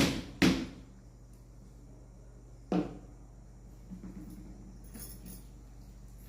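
Three sharp knocks, each with a short ring: two close together at the start, a third a little under three seconds in.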